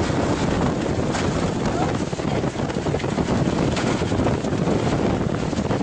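Strong wind buffeting the microphone: a loud, steady rumbling rush of noise with a couple of brief gusty surges.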